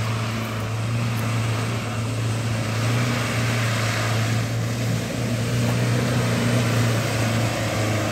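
Mitsubishi Delica 4x4 van's engine running at a steady, low pitch as the van drives slowly through a boggy rut, getting slightly louder as it comes closer.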